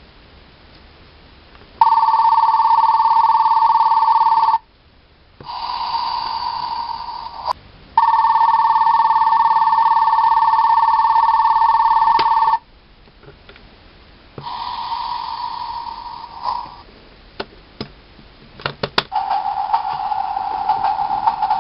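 A Bandai toy train-driver controller playing its electronic railway sound effects through a small speaker: an electric station departure bell rings twice for a few seconds each, with shorter effects in between. Near the end come a few sharp clicks of its buttons or lever, then a steady electronic tone begins.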